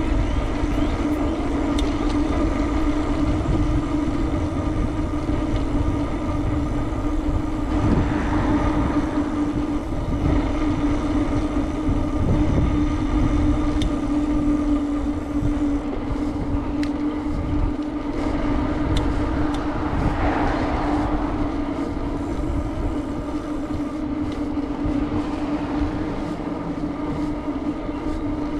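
Riding noise from a moving bicycle: wind rumbling on the microphone under a steady droning hum, with a few faint clicks now and then.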